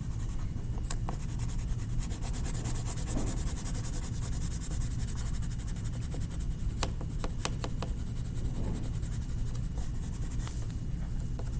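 Coloured pencil scribbling rapidly back and forth on paper in quick, short strokes, colouring in grass.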